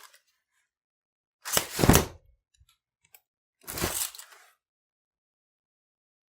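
An umbrella popped open twice, each time a short rustling pop of the canopy, about two seconds apart.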